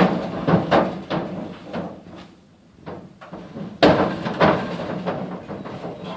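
Heifers' hooves clattering and banging on the floor and sides of a stock trailer as the cattle load, an irregular run of knocks with two loud bangs, one at the start and one about four seconds in.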